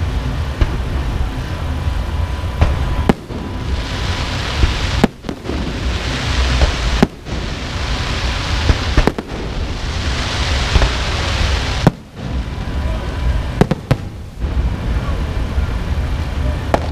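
Fireworks going off: sharp bangs about every two seconds, with a crackling hiss between them, thickest from about four to eleven seconds in.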